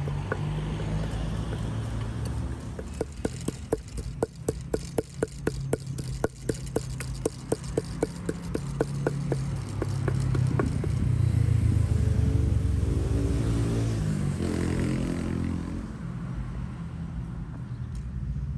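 A wooden pestle pounds papaya salad in a mortar in a steady run of knocks, about two and a half a second, which stops about two-thirds of the way through. Street traffic rumbles underneath, and an engine passes close in the second half, its pitch falling as it goes by.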